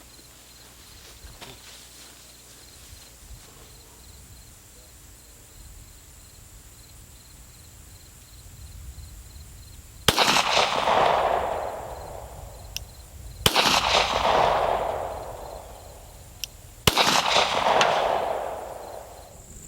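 Three shots from a 9mm Glock 17 fitted with an S3F Solutions barrel, fired slowly about three and a half seconds apart, each trailing off over about two seconds. Crickets chirp faintly in the background.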